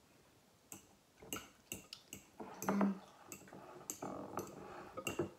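A spoon stirring hot water and jelly in a glass mixing bowl, clinking against the glass again and again at an uneven pace, to dissolve the jelly.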